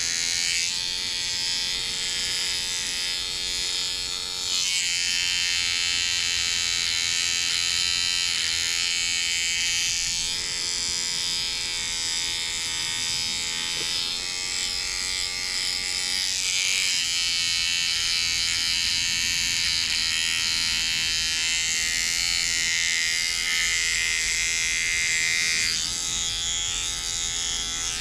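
Electric shaver buzzing steadily as it is run over beard stubble, its pitch shifting slightly a few seconds in and again past the middle.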